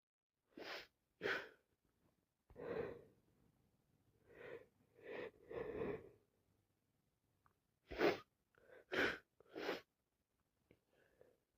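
A person with a cold breathing and sniffling in about ten short, quiet, breathy bursts, the sort of catching breaths that come in a sneezing fit.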